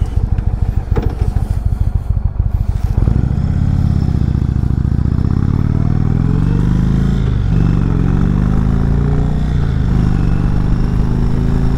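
Indian Chieftain Dark Horse's Thunderstroke V-twin idling with a pulsing beat, then pulling away about three seconds in and accelerating through the gears. The engine note climbs, drops at a gear change, and climbs again.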